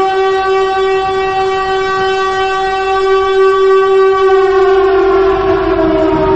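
Siren sounding one loud, steady wailing tone after winding up, its pitch starting to sag slightly near the end.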